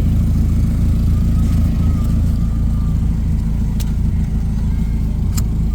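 Motor vehicle engine idling steadily, with two sharp clicks near the end.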